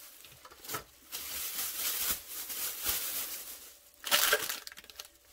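Crinkling of plastic packaging as items are handled, in irregular stretches, with a louder crinkle about four seconds in.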